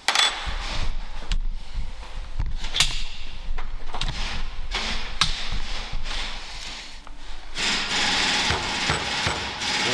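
Hand tools and small metal parts clicking and knocking against a brake caliper held in a bench vise, a string of separate sharp knocks. From about eight seconds in, a steadier, denser noise takes over.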